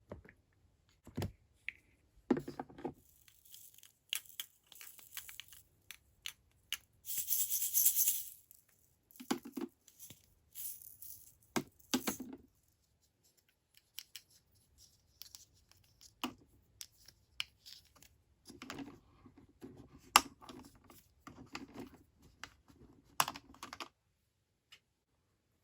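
Small plastic toy pieces and their packaging being handled during an unboxing: scattered clicks and taps with short rustles, and one longer tearing, crinkling sound about seven seconds in.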